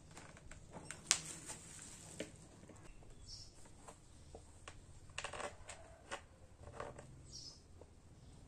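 Faint, scattered clicks and taps from handling a clear acrylic motorcycle windscreen and its small mounting fixings, the sharpest click about a second in. A bird chirps twice, briefly.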